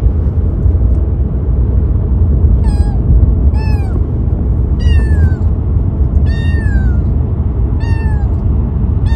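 A three-month-old Siberian kitten meowing in a pet carrier: five short, high meows that fall in pitch, a second or so apart. The kitten is protesting the car journey, and the car's steady low road rumble runs underneath.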